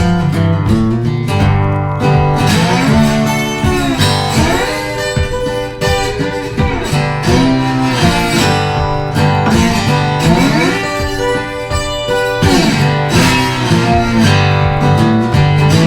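Music with plucked and strummed guitar.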